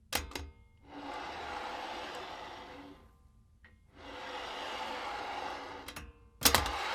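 A small wooden cart on an axle with bearings, rolled along a tile cutter in a homemade foley rig to make the sound of little cars: two steady rolling passes of about two seconds each, with a sharp knock near the end.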